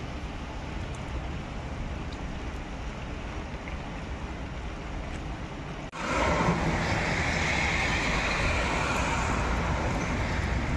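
Heavy rain falling on wet pavement: a steady hiss with a low rumble of wind on the microphone. About six seconds in, the sound cuts to a louder, brighter rush of downpour.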